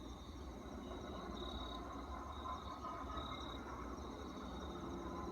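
Night insects, crickets, trilling steadily in a high, even pulsing tone, over a steady low rumble.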